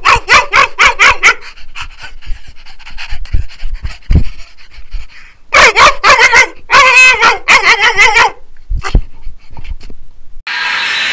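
A dog yipping and whimpering in quick pulsed runs, once at the start and again from about five and a half seconds in, with softer panting between.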